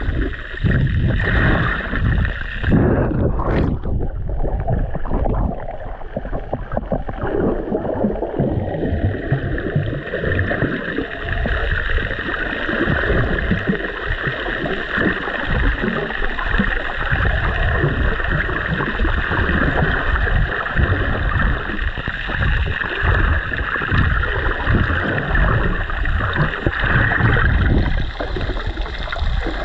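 Water rushing and gurgling over a submerged camera as it moves through shallow sea water: a steady, muffled wash with no let-up.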